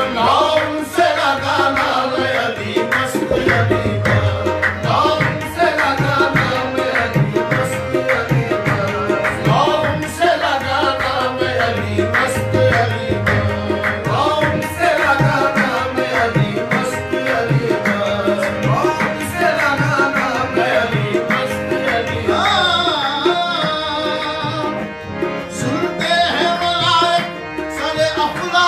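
Qawwali music: two hand harmoniums carry the melody over a steady tabla beat, with the chorus singing out near the end.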